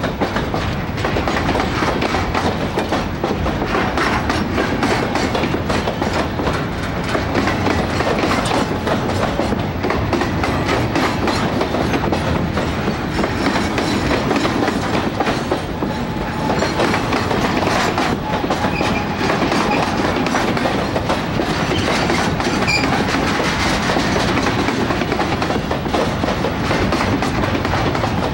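A long container freight train rolling past. The wagons' wheels make a steady clatter of closely spaced clicks, unbroken throughout.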